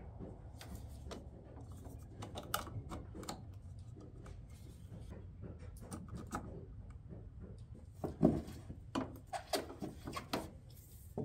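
Light clicks and knocks of an electrical cord and plug being handled, plugged in and fed through a hole in wooden barn boards, over a low rumble. The knocks come more often and louder near the end.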